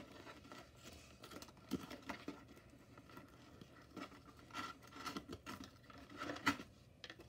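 Hands rustling through pink shredded packing filler and packaging while unwrapping a boxed doll: scattered small scratches and crinkles, with a sharper crackle about six and a half seconds in.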